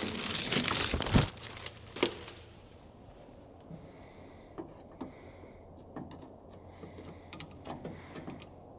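Rustling, crinkling handling noise with sharp clicks about one and two seconds in, then fainter scattered clicks and ticks: hands working a new window sweep and its clips into a truck door.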